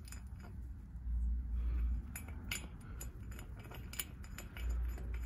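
Light, scattered metallic clicks and clinks of a bolt and washer being turned by hand into freshly tapped threads in a two-stroke engine cylinder, through the intake manifold flange. There is a low dull rumble of handling twice, about a second in and near the end.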